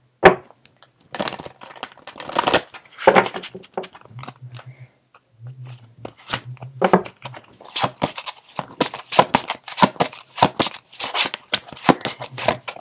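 A deck of tarot cards being shuffled by hand: a long run of quick, irregular flicks and slaps of card against card.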